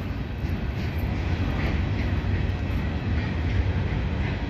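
Freight train cars rolling slowly past, a steady low rumble of steel wheels on the rails.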